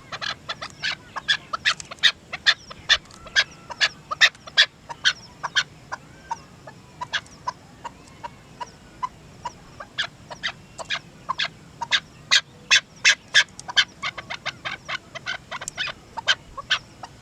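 Chukar partridge calling: a long run of short, sharp clucking notes, several a second, that thins out for a few seconds in the middle before picking up again.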